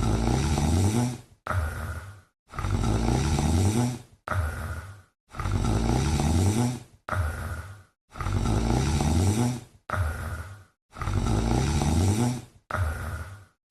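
Sleeping cat snoring in a steady rhythm: a longer snore with a wavering low pitch alternates with a shorter one, with brief silences between, about one pair every three seconds.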